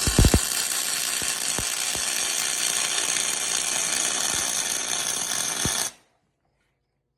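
A power tool running steadily for about six seconds, with a few sharp knocks near the start, then cutting off suddenly.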